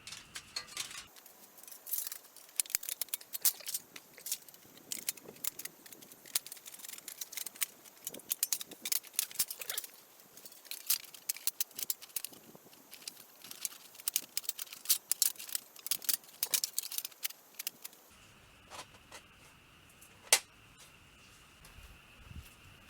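Rapid, irregular clicking and tapping of small hard objects being handled, such as utensils or containers, for about seventeen seconds, then a single click near the end.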